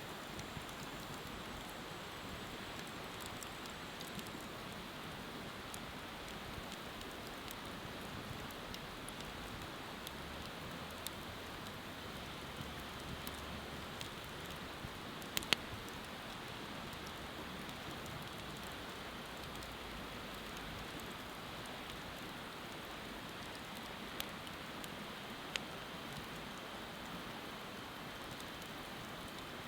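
Open wood fire burning: a steady hiss with a few sharp pops and crackles now and then, the loudest about halfway through.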